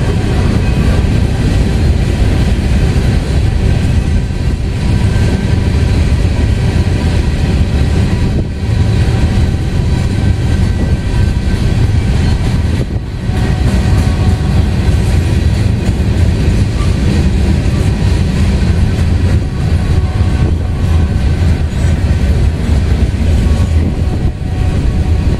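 BNSF freight train's covered hopper cars rolling past, a loud, steady rumble of steel wheels on the rails.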